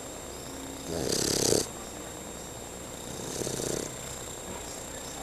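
Fila Brasileiro puppy snoring in its sleep: two rattling snoring breaths, a loud one about a second in and a softer one about three seconds in.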